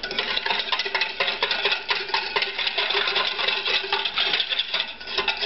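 Small wire whisk beating a little brown sugar, mustard and lemon juice in a stainless steel bowl: rapid, continuous clicking and scraping of the wires against the metal.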